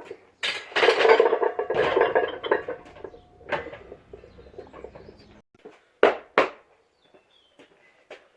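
Clanking and clinking of metal gym weights: a loud stretch of clatter in the first few seconds, then a few single sharp knocks, two of them close together about six seconds in.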